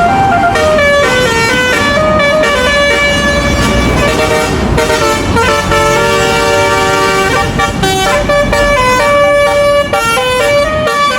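Basuri telolet horn on a tour bus playing a long, loud melody of quick stepping notes, with vehicle rumble underneath.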